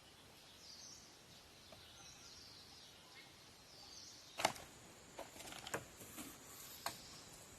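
Quiet forest with faint bird chirps in the first half, then about four sharp snaps or clicks, such as twigs breaking or steps on dry ground, the first about halfway through and the loudest.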